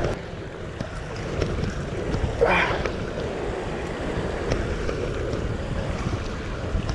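Wind buffeting the microphone over ocean swell washing against a rock ledge, with one short rising squeak about two and a half seconds in.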